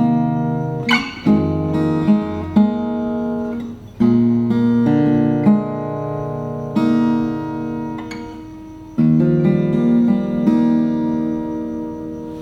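Maton steel-string acoustic guitar played dry, with no effects switched on: chords picked and left to ring, a new one struck every second or two, with the last one fading out near the end.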